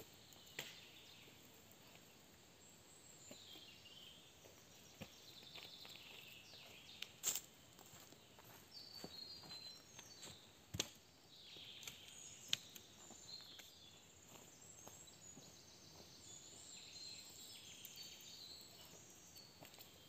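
Faint woodland ambience with small birds chirping in scattered high calls and a few sharp knocks, the loudest near the middle.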